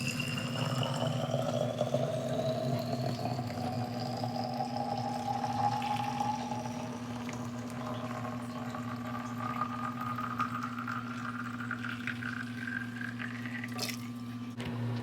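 Water running into a container, its pitch rising steadily as the container fills; the flow stops with a click near the end. A steady low hum runs underneath.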